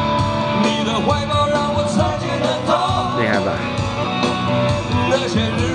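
Song with singing and instruments received from an FM station and playing through the speaker of a home-made radio built from a Honda Breeze car head unit.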